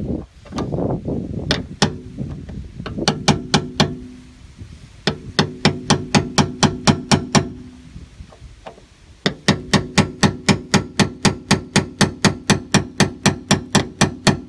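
Hammer rapidly tapping a cutting chisel against a seized steel screw on a VW bus sliding-door hinge, metal ringing on metal at about five blows a second. The blows come in three runs with short pauses between, cutting a groove into the hard, worn screw head.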